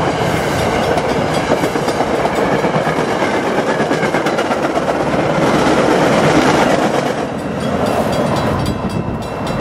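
MBTA Commuter Rail passenger coaches passing at speed: a steady rush of wheels on rail with clickety-clack, which falls away about seven to eight seconds in as the last car clears. The grade-crossing bell's regular strokes come through near the end.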